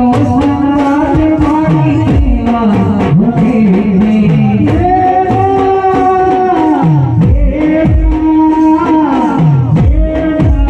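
Garba music played loud: a voice singing long, held melody notes over a steady beat with repeated falling low drum tones.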